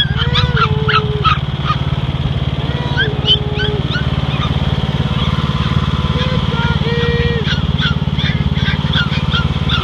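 Riding lawnmower engine running steadily while a litter of Pumi puppies yip and whine over it, the yips coming thickest in the first second or so.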